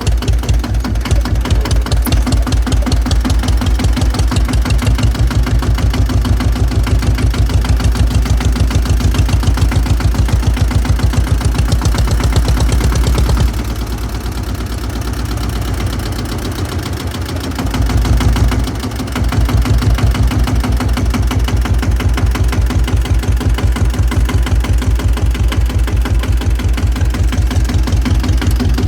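Single-cylinder diesel engine of a 1953 Fendt F12HL tractor running, with a steady, even beat of firing strokes. About 13 seconds in it drops quieter for some five seconds, rising briefly near 18 seconds, then returns to its earlier beat.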